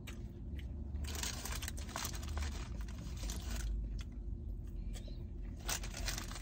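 Sandwich wrapping paper crinkling and rustling as a burger on it is handled, with small irregular clicks and rustles.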